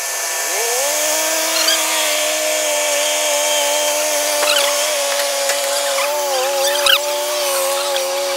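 Truck-mounted borehole drilling rig's motor winding up about half a second in, then running with a steady whine, with a few short high squeaks and a sharp click over it.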